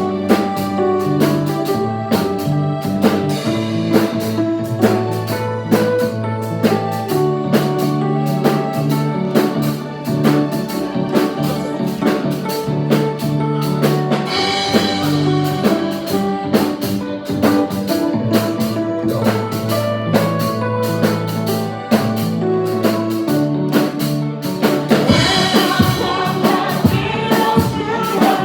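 Gospel praise-and-worship music with a band: a drum kit keeping a steady beat over bass and keyboard chords, with singing. It gets fuller and brighter near the end.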